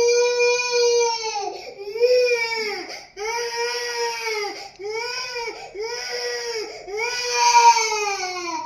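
Baby boy crying in a run of about six loud wails, each rising and falling in pitch with short breaks for breath between them. The last wail falls away near the end.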